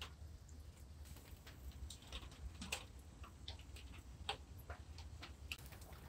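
Light, irregular clicks and taps of utensils against dishes, a dozen or so scattered unevenly, the sharpest about four seconds in, over a low steady hum.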